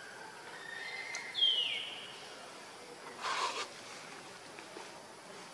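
Outdoor forest ambience with one high whistled animal call that falls in pitch about a second and a half in. About three seconds in there is a short scratchy noise.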